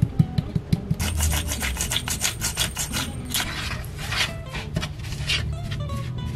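Quick ticks of seasoning being shaken into a nonstick wok, then a spatula scraping and stirring a thick, gritty chili-powder and sugar seasoning paste against the pan in fast, rhythmic strokes.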